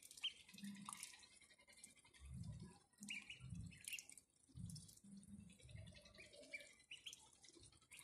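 Ducklings dabbling and drinking from a shallow plastic tub of water: faint, irregular slurps, splashes and drips as their bills dip in and out.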